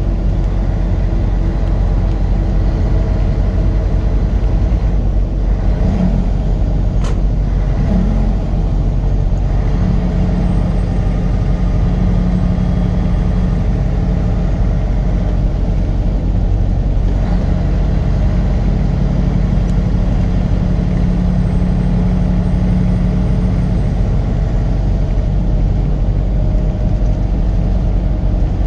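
A car being driven: steady engine and road noise, with the engine's hum shifting in pitch a few times and a single sharp click about seven seconds in.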